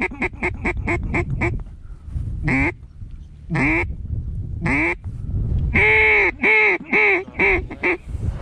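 Mallard duck call blown by a hunter, imitating a hen's quacks to pull passing ducks toward the decoys. A fast run of short quacks comes first, then three single drawn-out quacks about a second apart, then a slower run of five or six loud quacks.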